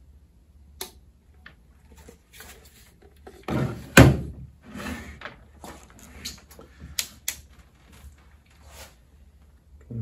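A plastic circuit trainer box is set down with a loud thud on a wooden desk about four seconds in, among scraping and knocking. Sharp clicks and rattles follow as multimeter test-lead plugs are handled at its jacks.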